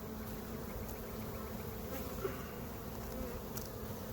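Steady loud buzzing of a dense mass of honey bees around an open nuc box, agitated and riled up because the hive was opened without smoke.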